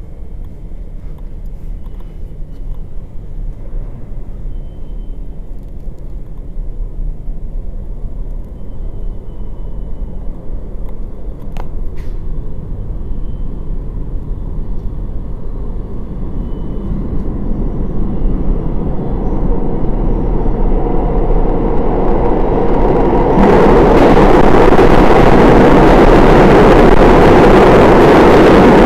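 New York City subway train approaching the station: a low rumble grows steadily louder over the second half and becomes a loud rush of wheel and track noise about three-quarters of the way in.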